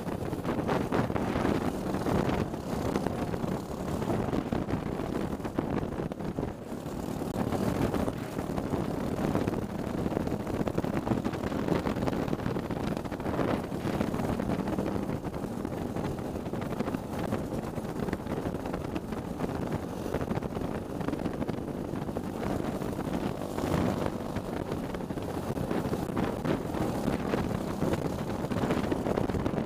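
Racing kart engine heard from onboard, running hard and continuously as the kart laps the track close behind another kart, with a short dip in loudness about seven seconds in.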